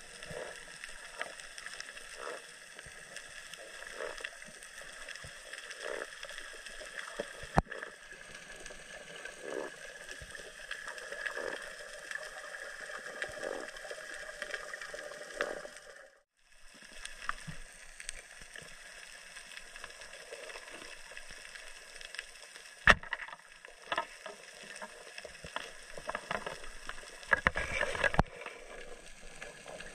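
Underwater ambience heard through a camera's waterproof housing: a muffled, steady water noise with scattered faint clicks and a few sharp knocks. The sound drops out briefly about halfway through.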